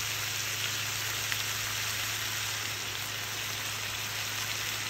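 Pork belly and other meats sizzling steadily in fat on a griddle pan over a portable burner, with a single small pop of fat about a second in and a steady low hum underneath.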